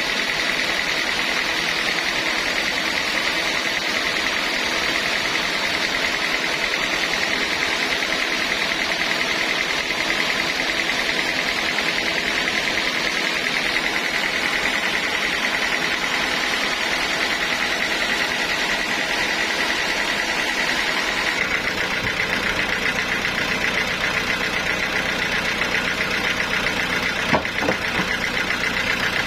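Sawmill machinery running steadily, with a high whine over a dense mechanical noise. About 21 s in a low hum joins, and a single sharp knock comes near the end.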